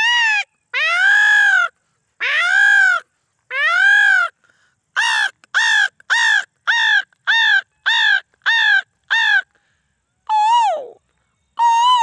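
A man's voice mimicking a peacock's call. It starts with four long, arching wails, then a fast run of about nine short calls, then two calls that drop in pitch near the end.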